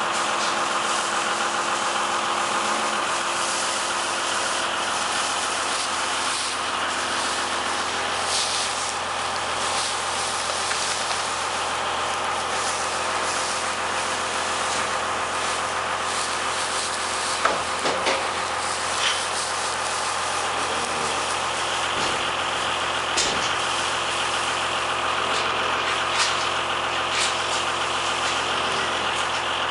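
A machine running steadily, an even, dense hum at a constant level, with a few short rustles and knocks in the second half.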